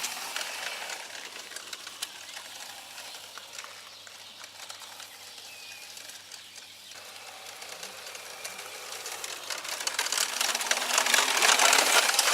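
Child's quad bike driving off and coming back: its motor runs with a rapid mechanical chatter over crunching tyres. It fades over the first few seconds and grows louder again near the end.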